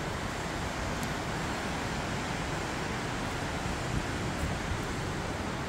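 Steady, even rushing of falling water from the River Isla at Reekie Linn waterfall.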